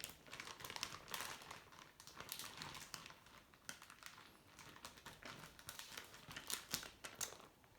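Clear plastic bag crinkling and rustling in the hands as herb leaves are pushed down into the hair gel inside it: faint, irregular crackles.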